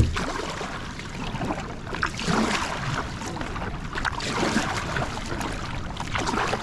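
Water sloshing and lapping against a kayak's hull in a running tide, swelling in surges about every two seconds.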